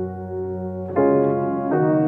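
Background music of sustained keyboard chords, with a new, louder chord coming in about halfway through and another shortly before the end.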